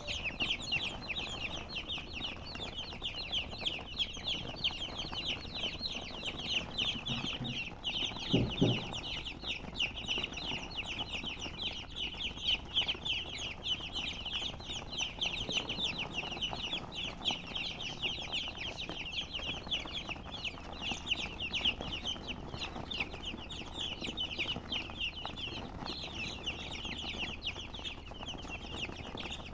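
A flock of chicks peeping continuously, many short high cheeps overlapping. A brief low thump sounds about eight and a half seconds in.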